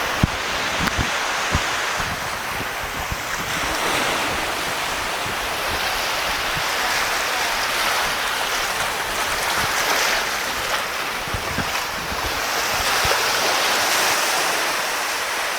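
Sea waves washing and surging, swelling and easing every few seconds, with wind buffeting the microphone in low thumps during the first few seconds.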